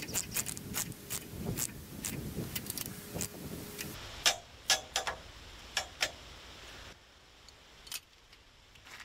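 Socket ratchet clicking in quick runs as lock nuts on a steel chain tensioner are tightened down, followed about four seconds in by a few separate, louder metallic clinks of hand tools being handled.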